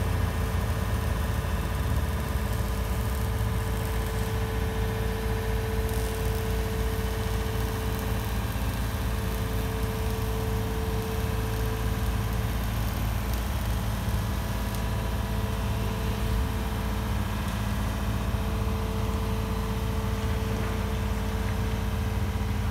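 Komatsu PC490HRD-10 high reach demolition excavator's diesel engine idling steadily, with a steady higher-pitched hum over the low engine note that dips for a few seconds midway and then returns.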